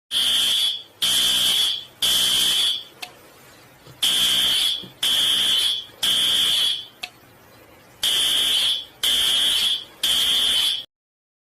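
Fire alarm sounding a loud, high-pitched beep in groups of three, each beep just under a second long, with about a second's pause after each group. Three groups sound, then it stops abruptly. The three-beep pattern is the temporal-three evacuation signal.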